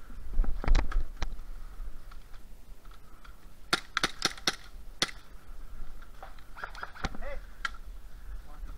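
Airsoft guns firing single shots: sharp snaps in two bunches, about four seconds in and again about seven seconds in, with a few duller thumps near the start.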